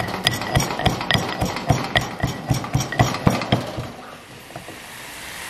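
Metal pestle pounding whole cinnamon, cloves and cardamom in a heavy stone mortar, about four sharp strikes a second, stopping after about three and a half seconds.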